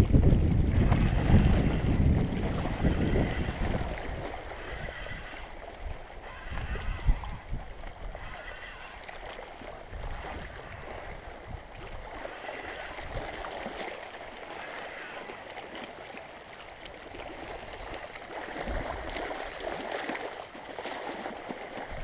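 Wind buffeting the microphone, loudest in the first few seconds and then dying down, over water lapping at the river's edge.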